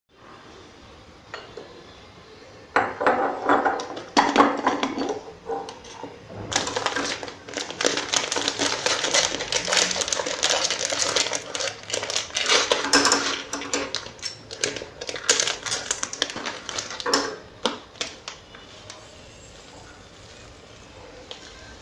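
Plastic bag of chilli flakes crinkling and rustling as it is handled, with clinks of a glass jar and its lid on a stone countertop. Dense crackly rustling starts about three seconds in and dies down near the end.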